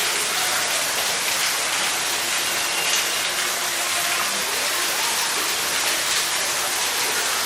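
Steady rushing hiss of falling water, the sound of rain, spray or a waterfall inside a tropical forest enclosure.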